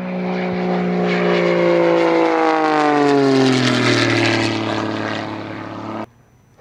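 Pitts Special aerobatic biplane's six-cylinder Lycoming engine and MT propeller flying past at high power. The engine note falls steadily in pitch as it goes by, then cuts off abruptly near the end.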